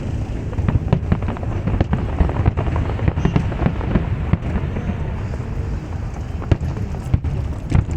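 Aerial fireworks exploding: a dense run of irregular sharp bangs and crackles over a continuous deep rumble of booms.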